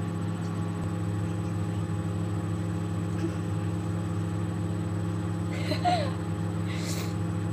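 Steady low electrical hum with a thin high whine over it, with a brief, faint voice sound about six seconds in and a short hiss about a second later.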